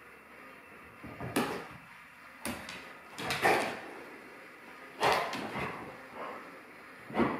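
A dog's paws thumping and scuffing on a rug and hardwood floor as it pounces and spins: a series of short, irregular knocks and scrapes, about six in all.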